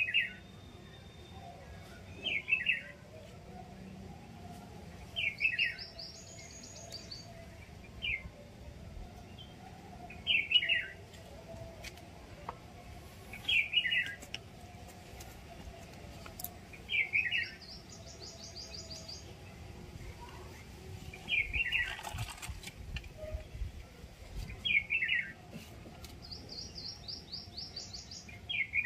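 Birds calling: a short, falling call repeated about every three seconds, and three times a higher, quick trill of rapid notes.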